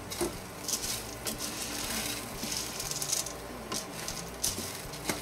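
Wooden spoon stirring uncooked macaroni with diced carrots and hotdog pieces frying in oil in a stainless steel pot: a light sizzle with scraping and a few sharp clicks of the spoon against the pot.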